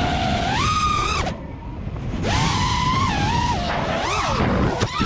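FPV quadcopter's motors whining, the pitch rising and falling with the throttle. It drops back about a second in, climbs again about two seconds in, and wavers near the end, over a rumble of wind and prop wash.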